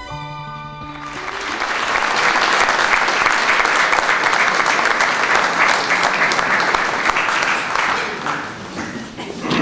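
Audience applauding at the end of a song: a held final note of the music dies away about a second in, then the clapping builds, stays strong and thins out near the end.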